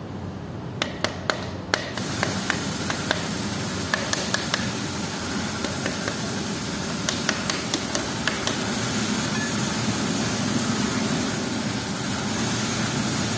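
Piston of a MAN engine being tapped down through a ring compressor into its cylinder bore with the butt of a hammer handle. The taps are quick and light and come in four short groups of several taps each, with pauses between.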